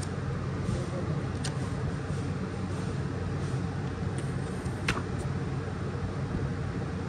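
Steady low mechanical hum, with two sharp little clicks about one and a half and five seconds in from a tempered-glass screen protector being handled and peeled over a phone.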